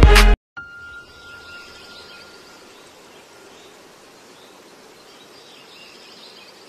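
Music cuts off abruptly, then faint steady background hiss: quiet room tone, with a faint high steady tone that fades away in the first couple of seconds.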